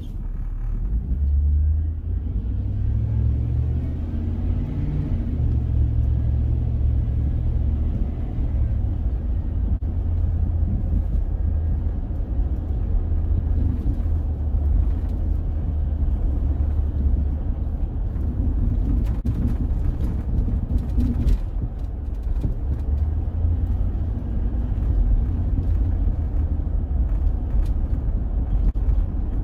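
Car driving: steady low engine and road rumble, with the engine hum changing pitch over the first several seconds.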